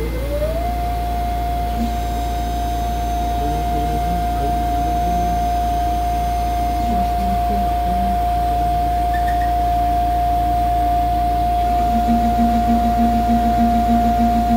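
Pocket NC V2-50 desktop five-axis mill's spindle spinning up with a rising whine in the first second, then holding a steady high whine. Short low whirring moves from the axis motors come and go underneath as the rotary table positions the aluminium stock. A low pulsing sound joins near the end.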